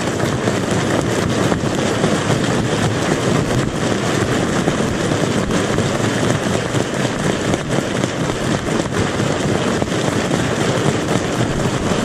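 Crowd applauding: many hands clapping in a dense, steady crackle.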